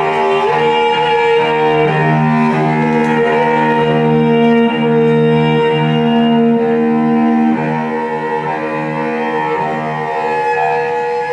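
Cello bowed in long held notes, several steady pitches sounding together and shifting every couple of seconds in a slow sustained texture, a little quieter from about two-thirds in.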